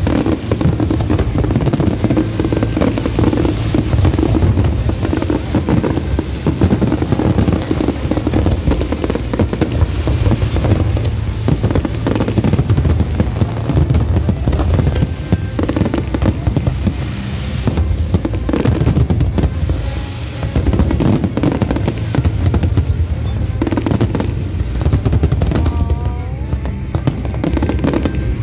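Fireworks show: a continuous, rapid barrage of bangs and crackles, with music playing underneath.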